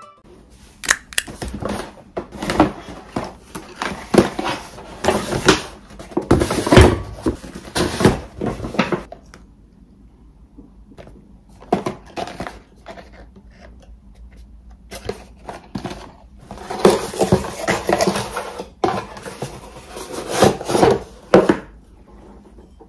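Boxes and packaging handled and set down on a countertop: dense runs of rustling, taps and light knocks in two long stretches, with a quieter lull in the middle.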